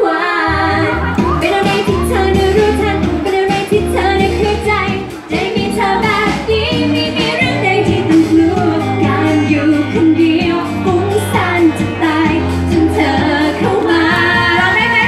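A woman singing a Thai pop song live into a handheld microphone over backing music with a steady bass line.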